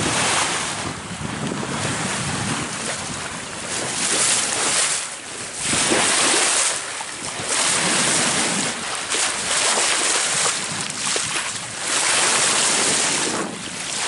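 Water rushing and splashing along the hull of a sailing yacht under sail, with wind buffeting the microphone; the sound swells and eases in irregular surges every second or two as the bow meets the waves.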